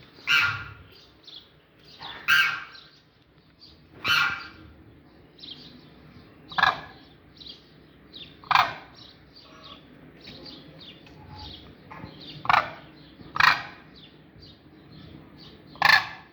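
Demoiselle cranes (koonj) calling: loud, harsh calls about every two seconds, eight in all, with softer, higher chirps in between.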